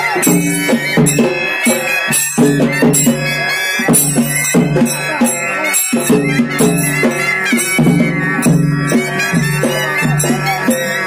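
Traditional Dhangar folk-dance music: a nasal wind instrument plays a bending melody while drums keep the beat.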